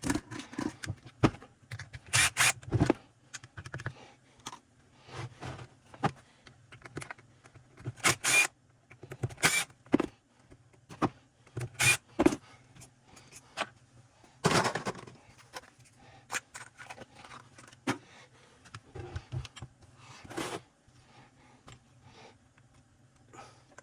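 Tools and small metal parts of an Echo CS-3000 chainsaw clicking, tapping and scraping at irregular intervals during disassembly, with a few louder knocks spread through, over a faint steady low hum.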